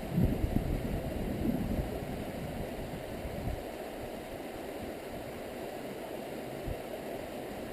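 Stream water running steadily, with some louder low rumbling bumps in the first couple of seconds.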